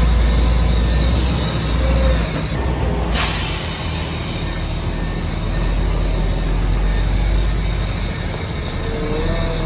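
Heavy diesel earthmoving machinery running under load: a deep steady engine rumble with a hiss over it, and short squeaks about two seconds in and again near the end.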